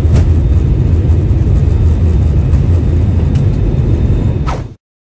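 Airliner cabin noise: a loud, steady low rumble of engines and airflow, which cuts off suddenly near the end.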